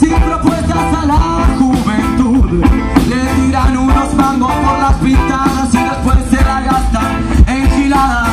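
A live rock band playing: electric guitar and drum kit keep a steady beat under a lead melody.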